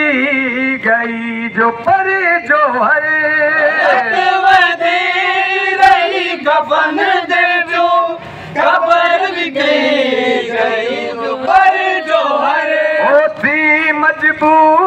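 A noha, a Shia lament, sung by a male reciter into a handheld microphone, with a group of men chanting along.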